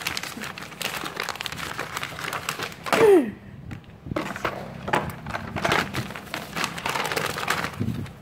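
Sheet of printer paper rustling and crinkling as hands fold it and press the creases flat on a desk. About three seconds in comes a short, falling squeak, the loudest sound.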